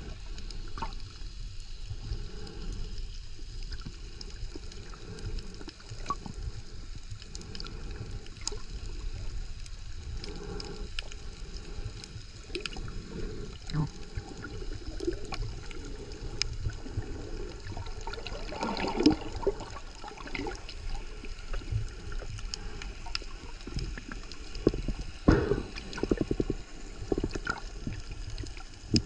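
Underwater sound picked up by a submerged camera: a steady low water rumble and hiss with scattered sharp clicks, and louder bursts of water noise about two-thirds of the way in and again near the end.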